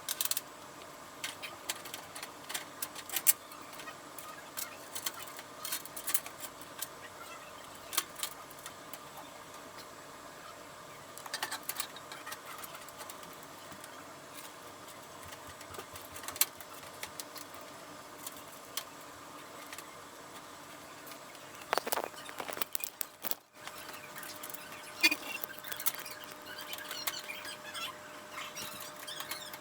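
Scattered small clicks, taps and knocks of computer parts being handled and fitted into a PC case, with a faint steady hum behind them.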